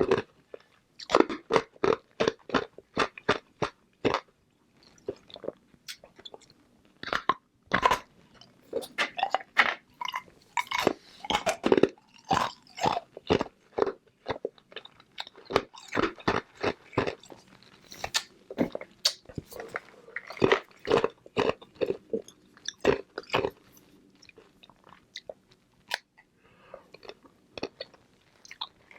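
Flavored ice balls being bitten and chewed close to the microphone: loud, rapid crunches of hard ice, with a short lull a few seconds in before the crunching picks up again.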